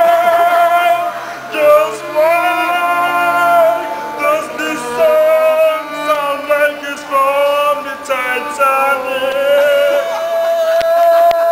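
A man singing loudly in long held notes, accompanied by a violin.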